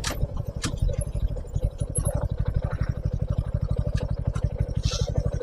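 Suzuki V-Strom SX 250's single-cylinder engine idling with an even, rapid beat of about a dozen pulses a second. A sharp click comes at the start and another just after half a second in.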